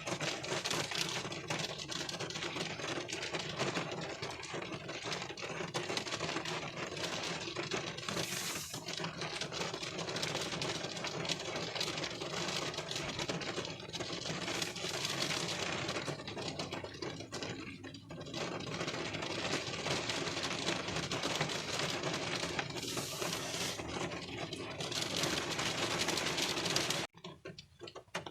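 Rain pattering on a car windshield, heard from inside the car: a dense, steady clatter of drops. Near the end it suddenly falls to quieter, sparser drops.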